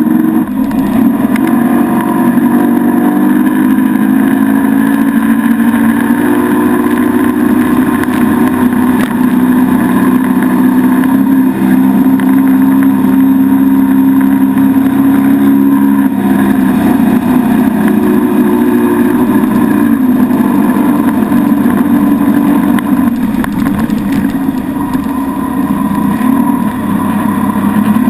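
Mercury motorboat engine running at towing speed, a loud steady drone whose pitch climbs a little a few seconds in and drops back about halfway through.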